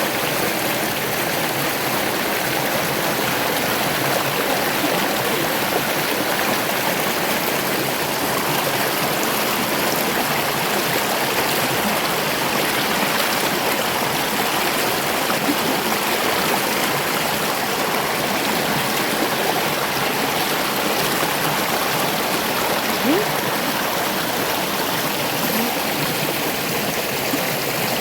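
River water rushing steadily, an even, unbroken wash of flowing water.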